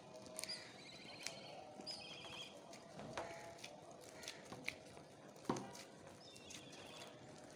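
Soft yeast dough being kneaded by gloved hands in a glass bowl: irregular sticky squelches and slaps as it is pressed and folded, the loudest slap about five and a half seconds in. A few short high squeaks come in between.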